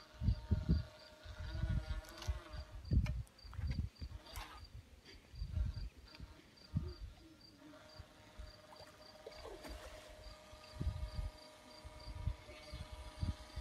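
Wind gusting on the microphone in irregular low rumbles, over a cricket-like insect chirping steadily about three times a second. A faint steady tone runs underneath for much of the time.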